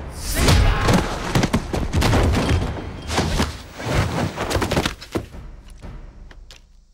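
Martial-arts film fight sound effects: a quick run of punch and kick impacts and heavy thuds, including a body landing on wooden planking. The blows thin out to a few light clicks in the last two seconds.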